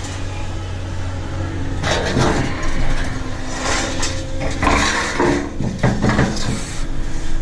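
A heavy cast-iron bath being heaved over by hand: irregular knocks and scraping of the metal, over a steady low hum.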